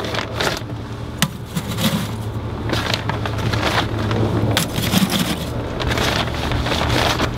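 Hickory smoking chunks set down one at a time on lump charcoal in a kamado's firebox, giving a few sharp knocks and light clatter, over a steady low rumble of wind on the microphone.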